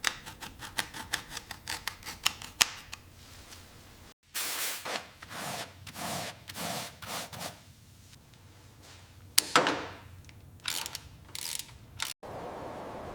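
Workshop hand-tool sounds in short edited takes. First come rapid clicking strokes, several a second, like a ratchet. After a cut comes a run of rasping, scrubbing strokes about two a second, then a few sharp clicks and scrapes.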